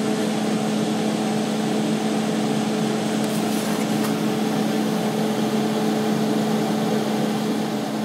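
Steady whooshing hum of a running fan or motor, with a constant low hum tone and its overtone, unchanging throughout.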